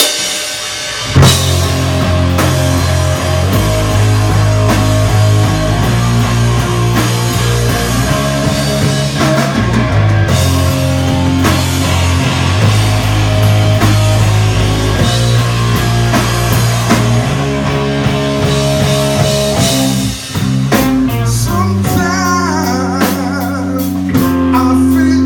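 Live rock and funk band playing with drum kit and electric guitar. The full band comes in on a loud hit about a second in, with a brief drop out around twenty seconds.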